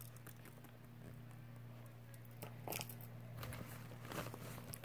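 Faint rustling and small clicks of a hand rummaging inside a nylon backpack compartment, with a brief louder clatter near three seconds in and busier rustling toward the end. A steady low hum runs underneath.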